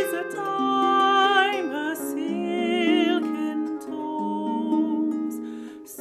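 Lever harp playing plucked notes and chords, with a woman's voice singing long, wavering notes with vibrato over it.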